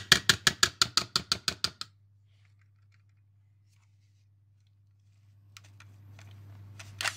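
Metal wire beaters of a hand mixer tapped quickly against the rim of a stainless steel mixing bowl to knock off batter, about seven clicks a second, fading out about two seconds in. Then quiet handling noise and one sharp click near the end.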